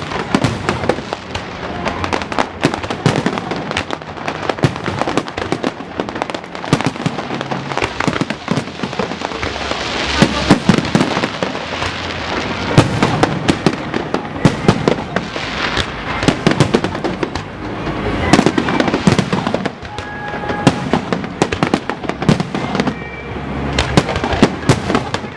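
Fireworks display: a dense, unbroken run of bangs and crackling bursts, many a second.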